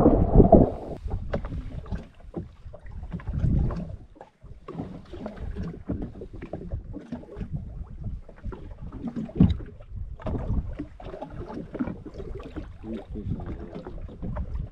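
Uneven low rumble of wind and water around a small fishing boat, with scattered knocks and bumps.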